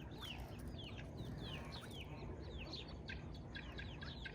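Chickens peeping: a faint, steady run of short, high chirps that fall in pitch, two or three a second.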